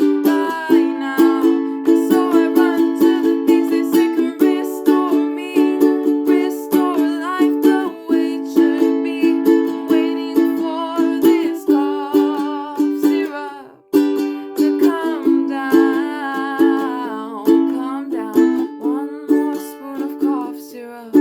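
Acoustic stringed instrument strummed in a steady rhythm as a song accompaniment, with a brief break about fourteen seconds in.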